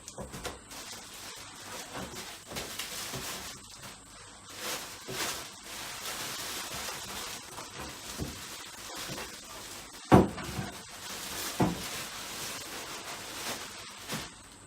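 Rustling and handling of packaging and parts during unboxing, with a sharp knock about ten seconds in and a smaller one shortly after, as items are set down.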